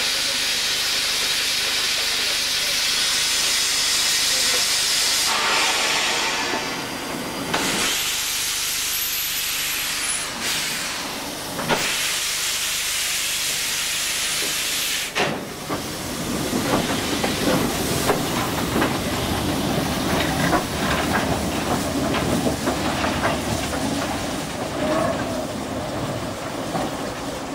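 Steam hissing loudly from a small steam tank locomotive, broken off twice in the first half. From about halfway the engine moves along the track with a low rumble and repeated metallic clanks.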